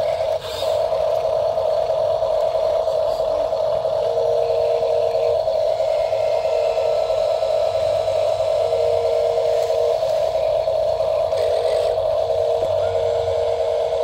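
Small electric motor and gearbox of a toy RC dump truck whining steadily as the tipper bed lifts, with a second, lower whine cutting in and out four times.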